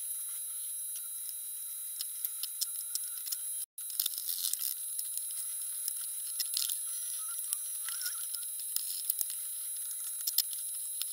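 Scattered clicks and rattles of bar clamps and spring clamps being fitted and tightened onto a glued plywood instrument body, over a steady hiss. The sound cuts out briefly about four seconds in.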